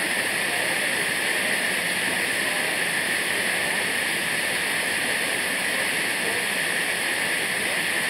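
Steady rush of water at a waterfall: an even, unbroken hiss that does not change.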